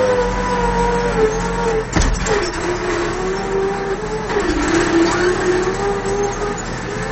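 Case IH 1056 XL tractor's six-cylinder diesel engine running under load, heard from inside the cab while pulling harrows. A clunk sounds about two seconds in. After it the engine note drops and wavers lower, then picks back up near the end.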